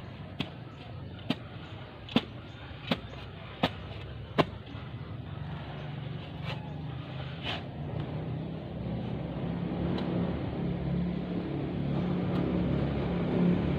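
Sharp knocks of a steel spade chopping into grassy turf, about one every three-quarters of a second for the first few seconds, then a few more spaced out. A low engine hum builds up in the second half.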